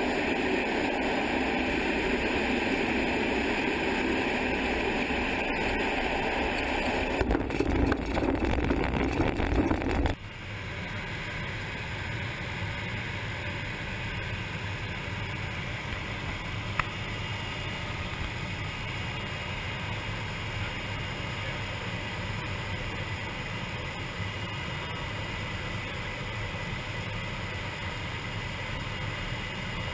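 Pilatus PC-6 Turbo Porter's turboprop engine and propeller droning steadily in flight, mixed with rushing wind, rougher and rumbling from about seven seconds in. About ten seconds in the sound cuts abruptly to a quieter, steadier drone heard from inside the cabin.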